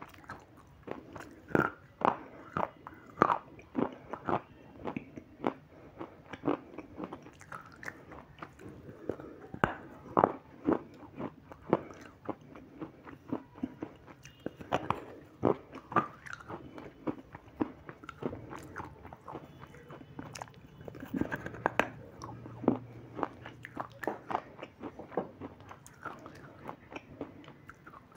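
Close-up biting and chewing of a white substance, with sharp crunches coming at uneven intervals, at times several a second.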